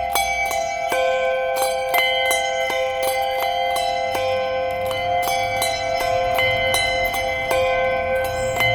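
Handbells rung one after another in an even rhythm of about three strikes a second, each note ringing on over the next.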